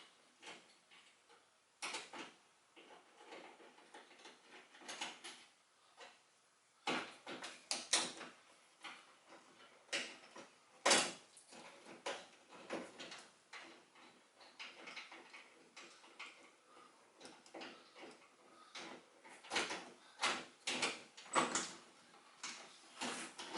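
Irregular clicks, knocks and rattles of hand work on a car door's interior: a 3/8 nut driver on fasteners and hard plastic trim being handled, with one sharper knock about eleven seconds in.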